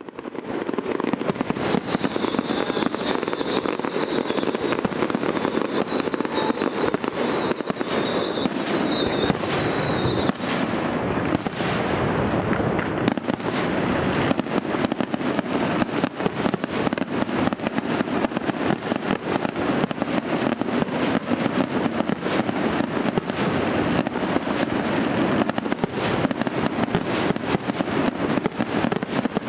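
Aerial fireworks shells bursting in a dense, unbroken barrage of bangs and crackles. A high steady whistle sounds from about two seconds in until about ten seconds in.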